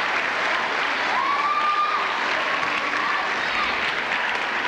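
Audience applauding steadily. A single long, high held tone rises above the clapping about a second in and lasts about two seconds.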